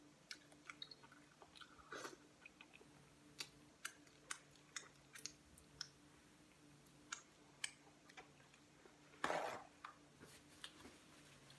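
Close-miked eating sounds: a person chewing and lip-smacking on butter-dipped seafood, with short wet clicks at irregular intervals over a faint steady hum. A louder rustling burst comes about nine seconds in.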